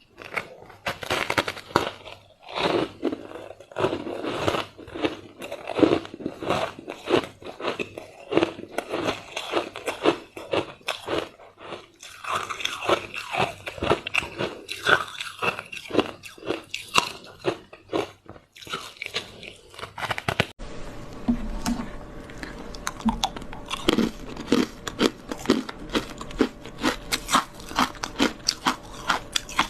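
Frozen matcha ice being bitten and chewed close to the microphone: a rapid, uneven run of crisp crunches. About twenty seconds in the recording changes abruptly and a steady hum sits under the crunching.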